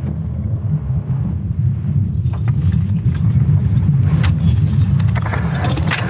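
ESA's sonification of Earth's magnetic field, made from Swarm satellite measurements: a deep, continuous rumble that swells a little midway, with hiss and scattered crackles over it.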